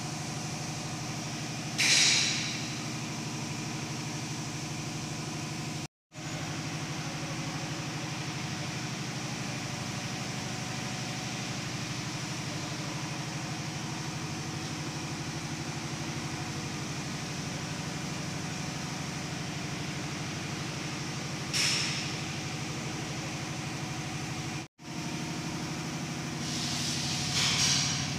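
Radial drilling machine running with a steady mechanical hum of several fixed pitches. Short hissing bursts come near the start and again about three-quarters of the way through, and the sound cuts out briefly twice.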